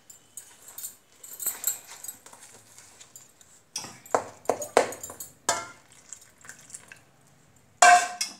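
A spoon stirring flour and jaggery water in a stainless steel bowl, scraping and clinking against the steel. There are several sharp knocks about four to five seconds in and one loud, brief sound near the end.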